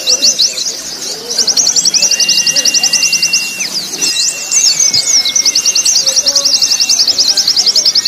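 Several white-eyes (pleci) singing over one another, layered into a training track: fast trills of quick rising notes in three runs, with long steady whistled tones, one near the middle and one just after.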